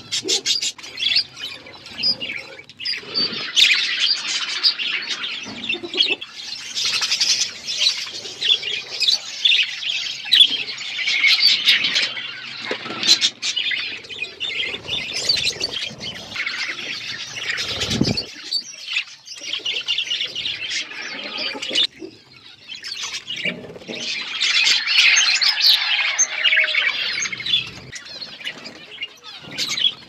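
Flock of budgerigars chattering, many high chirps and squawks overlapping almost without a break, swelling and dipping in loudness.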